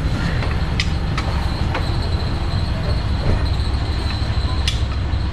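Steady low machine rumble with a thin high whine, over which a few sharp metal clicks sound as a socket wrench tightens the bolts of a motorcycle's clutch cover.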